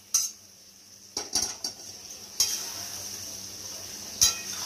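A metal spatula clinking and scraping in a kadai as chicken pieces are stirred into masala frying in oil. A steady sizzle sets in from about halfway, and a sharp knock of the spatula on the pan comes near the end.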